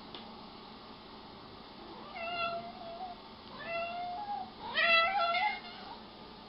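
Domestic cat meowing three times, the third call the loudest.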